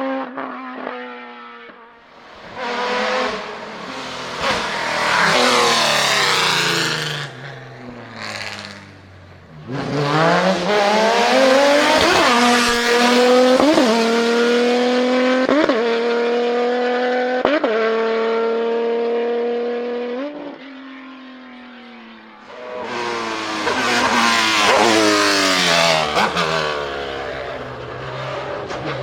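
High-revving racing engines of hillclimb prototypes and formula cars accelerating up the course one after another, the pitch sweeping up and down as they go. In the middle one car holds high revs with short breaks in the note about every two seconds as it shifts gear.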